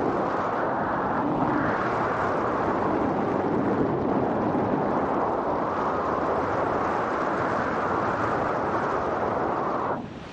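Wind rushing over the camera microphone of a paraglider in flight: a steady, unpitched rush of noise that drops away sharply near the end.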